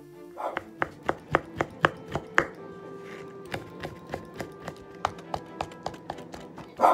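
Kitchen knife mincing cooked kabocha pumpkin skin on a wooden cutting board: quick regular chopping strokes, about four a second. The chopping pauses about halfway, resumes more softly, and ends with a louder burst.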